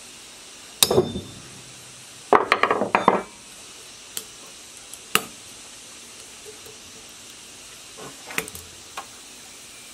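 Metal clinks and clanks from dismantling the valve gear of a 1115 single-cylinder diesel's cast-iron cylinder head: a sharp clank about a second in, a rattling run of clinks around two and a half seconds, then scattered light ticks as the valve spring and retainer are worked free with a compressor and a pick.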